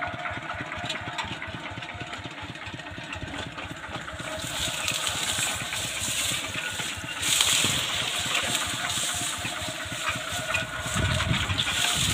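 Farm machine engine running steadily, its firing heard as a dense low pulsing. From about four seconds in, a rhythmic hiss swells and fades a little under once a second.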